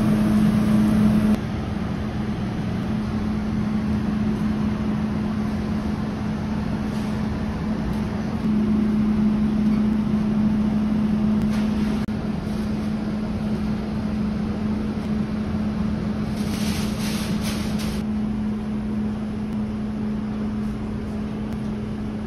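Steady machine hum with a low drone and a noise bed, stepping quieter about a second in and louder again a third of the way through. Near the end a short patch of higher hiss and ticking sits on top.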